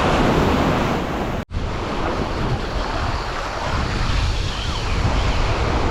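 Ocean surf washing ashore with wind buffeting the microphone. The sound cuts out for an instant about a second and a half in.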